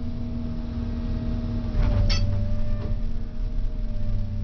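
John Deere 690E LC excavator's diesel engine running with a steady hum. About two seconds in, the pitch sags slightly and it grows louder as the bucket takes a load of mud, with a sharp clank and a lighter knock a second later.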